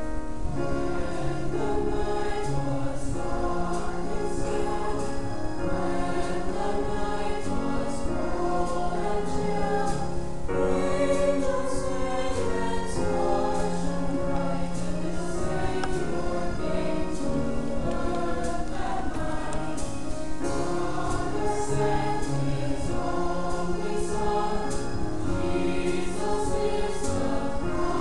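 A choir singing, in phrases of held notes, with a brief pause for breath about ten seconds in.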